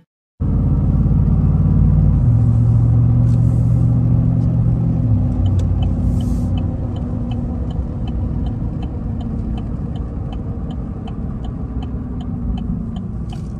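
Car interior noise while driving: a steady low rumble of engine and tyres on the road. From about five seconds in, the turn signal clicks at an even pace, about two to three ticks a second.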